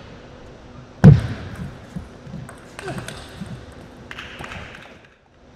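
Table tennis ball clicking off rackets and table in a short point, opening with a loud, sharp knock about a second in and then a quick run of lighter clicks.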